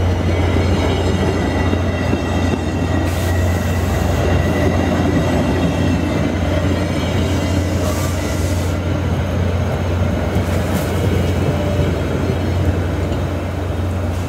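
VIA Rail passenger coaches rolling past along the platform track, their wheels giving a steady low rumble, with a faint high wheel squeal and a few brief hisses about 3, 8 and 11 seconds in.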